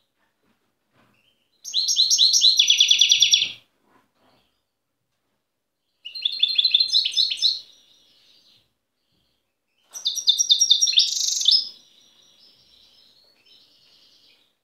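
European goldfinch singing its wild song: three bursts of rapid trilled and twittering phrases, about four seconds apart, the last trailing off into softer twittering.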